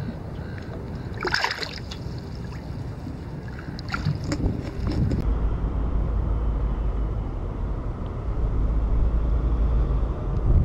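Water splashing as a bream is let go by hand at the surface, a few splashes in the first half, the loudest about a second and a half in. Then a steady low rumble of wind on the microphone.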